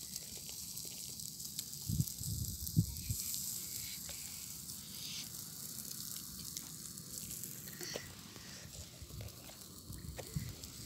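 Chicken sizzling on a wire grill over charcoal: a faint steady hiss, with a few low thuds about two to three seconds in.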